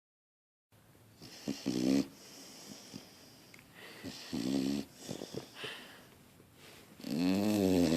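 A pet dog snoring loudly: three snores starting about a second in, roughly one every three seconds, with quieter breathing between them.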